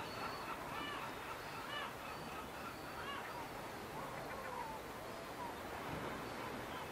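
Outdoor ambience: a steady hiss with a few short, arching calls about a second apart in the first few seconds, and a few fainter ones later.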